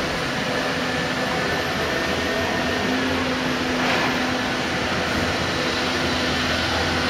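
Heavy demolition machinery running steadily: a continuous engine drone with a low hum under it and a slight swell about four seconds in.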